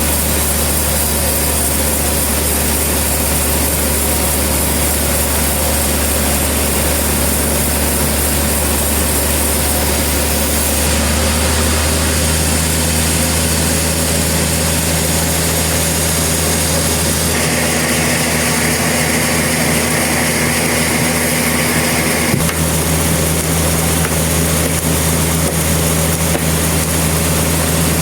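Sawmill engine running steadily, its note shifting partway through, with a higher hiss added for a few seconds past the middle.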